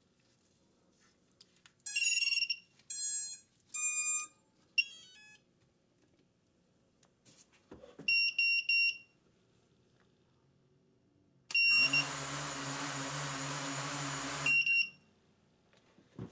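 FPV racing quadcopter powering up on a fresh battery: its ESCs play their start-up tones through the Emax 2205 motors, then three short beeps. About eleven seconds in the motors spin the 5-inch props at idle, a steady whir for about three seconds, with a short beep as they start and stop.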